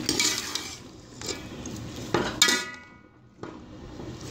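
Slotted metal spoon clattering and scraping against a metal cooking pot as chicken pieces are added and spread into the vegetables. There is one sharp clank about two and a half seconds in that rings briefly, followed by a short lull.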